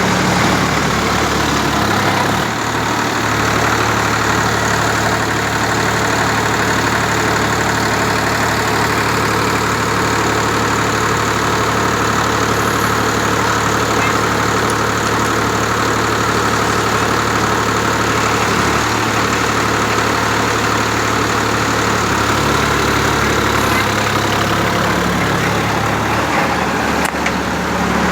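Tractor's diesel engine running steadily as the power source for a self-loading concrete mixer, its pitch shifting slightly a few times.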